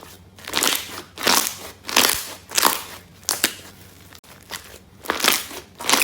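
Bubbly slime being squeezed and popped: a string of short crunchy, crackling squeezes, about one a second, with a short pause about two-thirds through.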